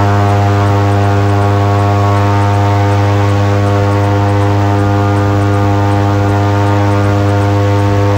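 Airboat engine and propeller running at a steady speed: a loud, unchanging drone.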